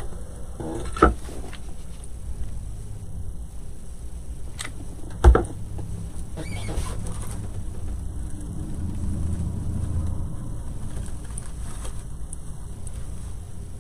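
Hands rustling and handling ribbon and craft materials on a work table, with two sharp knocks, the louder one about five seconds in, over a steady low hum.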